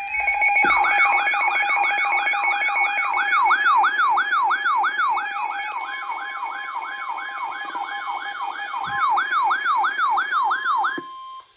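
Emergency alert siren sounding before a flash flood warning broadcast: a loud, fast wail that sweeps down in pitch about three times a second over steady tones, with a steady tone joining near the end. It cuts off suddenly just before the spoken message.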